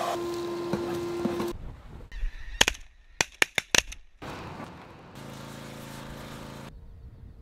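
A Shop-Vac wet/dry vacuum running with a steady whine, cutting off about a second and a half in. Then a quick volley of about five shotgun shots among honking geese. Then a pressure washer spraying, its motor humming steadily for about a second and a half before it stops.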